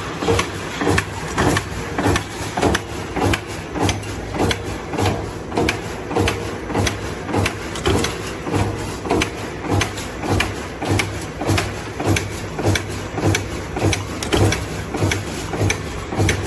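Punch presses on an open-cell ceiling grilliato production line, striking the metal strip in a steady rhythm of about three strokes every two seconds over a steady motor hum.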